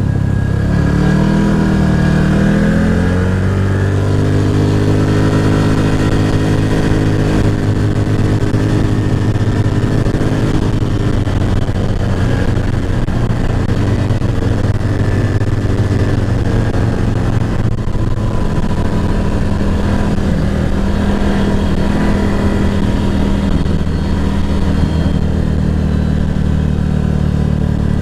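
ATV engine under way, revs climbing over the first few seconds and then running steadily at cruising speed.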